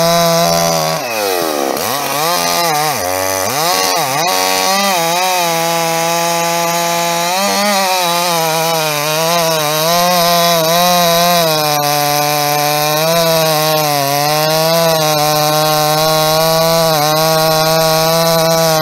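Two-stroke chainsaw cutting crosswise through a large log. The engine pitch dips and recovers several times in the first few seconds as the chain bites, then holds steady under load.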